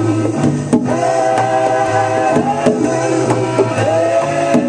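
A song playing: held melody notes over a bass line, with a steady drum beat.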